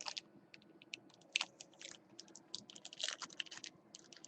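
Trading cards and foil card-pack wrappers being handled: quick, irregular light clicks and crinkly rustles as packs are opened and cards slid through by hand.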